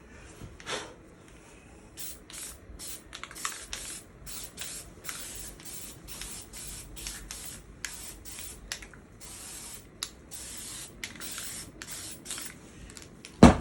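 Aerosol spray-paint can sprayed in many short hissing bursts of a second or less. A sharp knock near the end.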